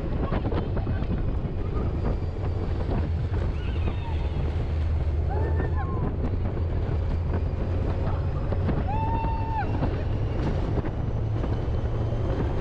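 Wind buffeting the microphone over a steady low rumble as the open-top Test Track slot-car ride vehicle speeds along its outdoor high-speed track.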